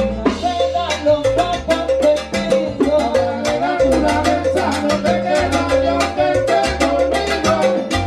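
Live salsa band playing, with drums and percussion striking a steady beat over a pulsing bass line.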